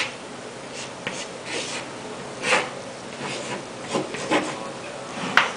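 Chalk scratching on a blackboard while a diagram is drawn: a string of short, separate strokes, the sharpest one near the end.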